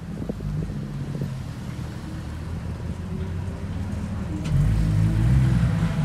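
Porsche 911's flat-six engine running at low speed as the car rolls slowly forward. It grows clearly louder from about four and a half seconds in as the car comes close.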